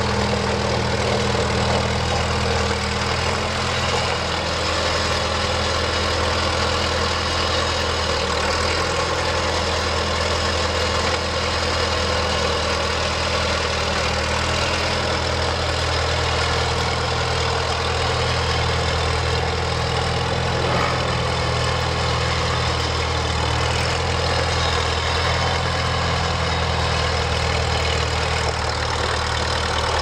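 1954 International Super M TA tractor's four-cylinder engine running steadily through its vertical exhaust stack as the tractor is driven slowly, with no change in engine speed.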